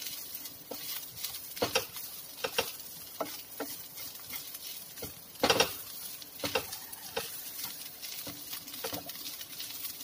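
Wooden spatula stirring and scraping minced meat around a nonstick frying pan, with irregular taps against the pan, the loudest about halfway through, over a faint frying sizzle. The spice mix is being stirred into the boiled mince.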